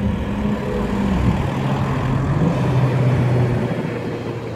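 Wiesmann GT coupe's BMW engine running at low revs as the car rolls slowly past. Its note drops in pitch in two steps, about a second in and again midway through.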